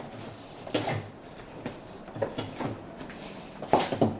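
Rubber washing machine door seal being pushed and worked by hand onto the metal lip of the cabinet's front panel: intermittent rubbing and soft knocks, loudest near the end.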